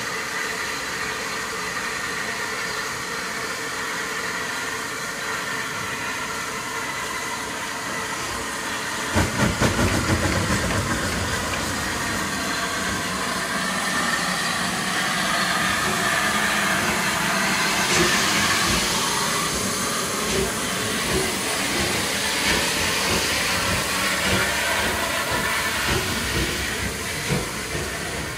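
Bulleid Pacific steam locomotive 34053 hissing steam at a standstill, then starting its train: about nine seconds in it sets off with a few heavy exhaust beats, and hissing steam and chuffing carry on as it pulls away.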